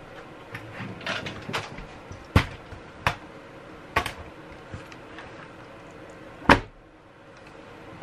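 A string of hard plastic knocks and clicks, the loudest about three-quarters of the way through, as the Philips 3000 Series cordless vacuum's floor nozzle is set down onto its clear plastic wet-mop attachment and fitted in place.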